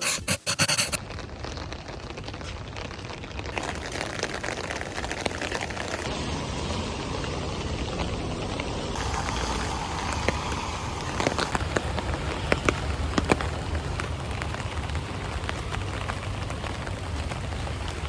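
Background music cuts off about a second in, leaving a steady hiss of ambient noise with scattered clicks and taps.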